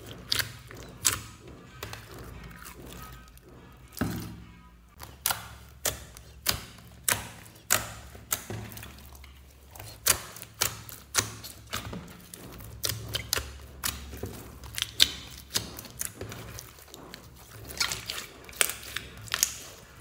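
Hands kneading and squeezing a large glittery slime, giving irregular sharp pops and clicks, at times several a second.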